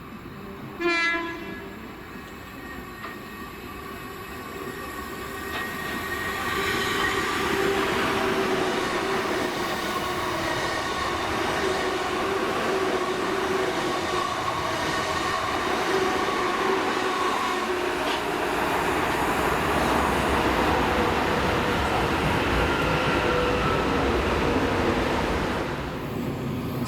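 A train sounds one short horn blast about a second in, then comes into earshot and grows louder, running close by and loud for about twenty seconds with steady whining tones over rumbling wheel noise.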